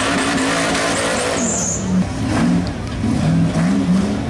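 Off-road rock racing truck's engine running at high revs while its big tyres spin in loose dirt. From about halfway, the throttle is worked in repeated short revs, about two a second, as the truck climbs onto boulders.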